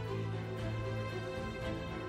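Background music with sustained held notes over a steady low bass note.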